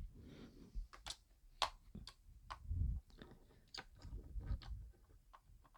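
Faint handling of a small video light and microphone: scattered sharp clicks and a few soft knocks and rustles of plastic and metal camera accessories being picked up and turned over.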